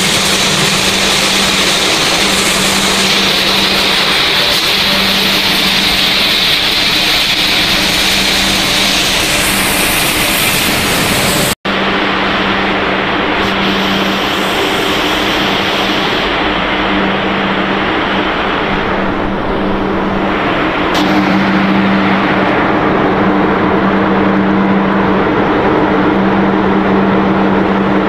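Snack pellet production line machinery running steadily: motors, fans and conveyors with a constant low hum. The sound drops out for an instant about a third of the way through, then carries on with less hiss.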